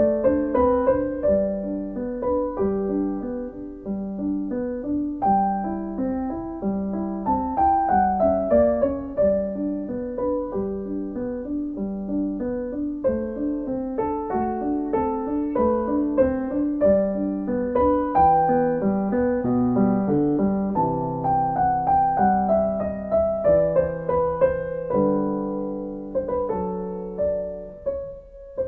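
Solo piano music: a gentle melody of separate notes over a repeating accompaniment, played without a break.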